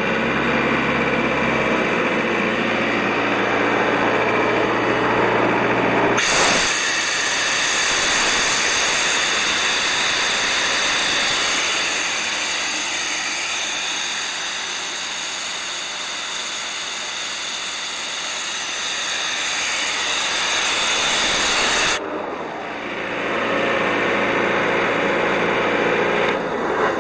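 Sullair 185 CFM tow-behind air compressor running, a steady engine hum. About six seconds in the sound switches abruptly to a louder, broad hissing rush. Near the end it switches back to the steady hum.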